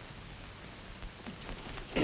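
Steady hiss of an old 1930s optical film soundtrack, with a few faint ticks in the second half.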